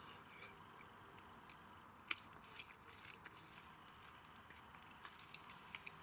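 Near silence with faint mouth clicks of someone chewing a mandarin segment; one clearer click about two seconds in.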